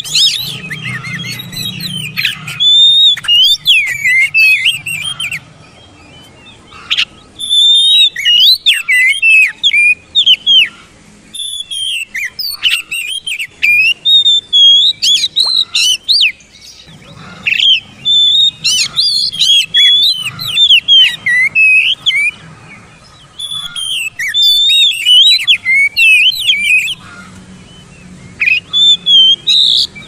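Oriental magpie-robin singing: loud runs of quick, varied whistled notes that sweep up and down, in phrases of a few seconds separated by short pauses.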